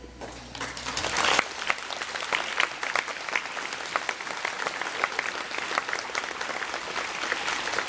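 A crowd applauding: many hands clapping, starting about half a second in and going on steadily.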